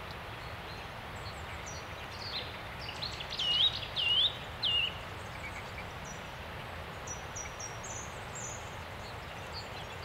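Small songbirds calling over a steady hiss of background noise. A handful of loud, curved whistled notes come in the middle, and faint, short, high calls follow later.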